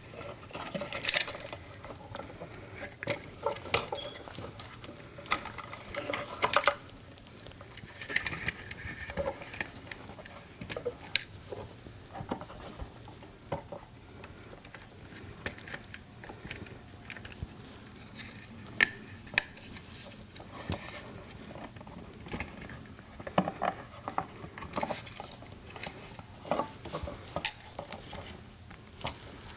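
Irregular small clicks, taps and rattles of hands working on a USB wall outlet: neutral wires being pushed into its terminals and the terminal screw being tightened with a screwdriver.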